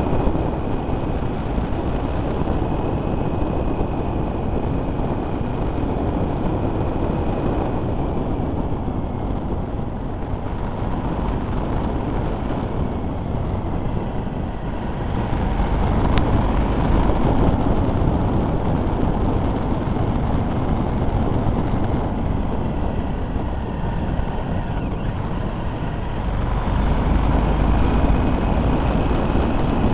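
Motorcycle ride at road speed: wind buffeting on the microphone over the running engine, swelling louder about halfway through and again near the end.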